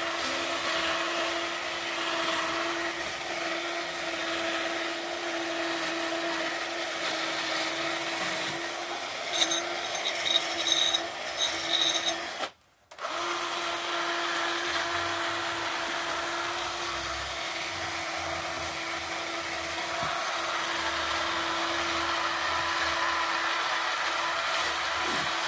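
Cordless drill spinning a wire brush against the Suzuki GS850G's engine, a steady motor whine with scrubbing noise to strip loose, flaky paint and dirt. A few louder knocks come about nine to twelve seconds in, then the sound breaks off for a moment before running on.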